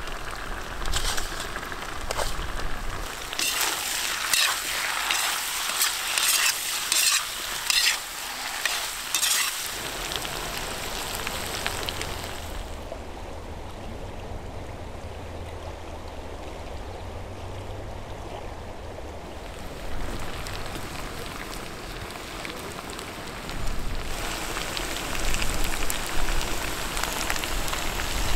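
Meat, potatoes and peppers frying in a cast-iron cauldron: a hissing sizzle with crackles and the scrape of a utensil stirring. For several seconds in the middle the sizzle dies down to a quieter low steady hum, then picks up again near the end.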